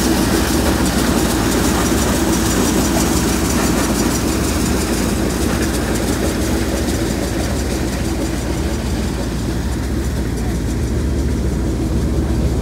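Tractor-driven maize thresher running steadily: a loud, even mechanical din over a low engine hum, as shelled maize pours out into the trolley.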